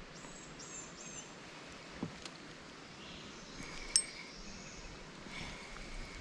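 Quiet outdoor ambience at the water: a bird gives three quick high chirps in the first second, with a few sharp light clicks about two and four seconds in, and faint short high tones later on.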